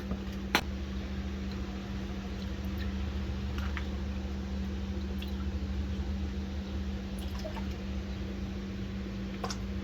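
Marvel Mystery Oil trickling and dripping down into the cylinders of a small-block Chevy 350 engine, faint against a steady low hum, with one sharp click about half a second in.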